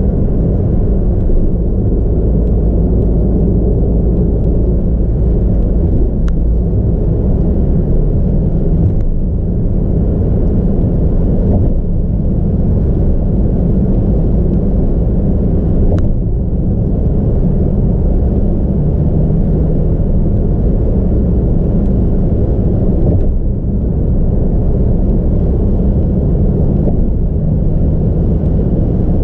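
Steady road and engine rumble of a car cruising on an expressway, heard from inside the cabin. There is a faint tick about six seconds in and another about sixteen seconds in.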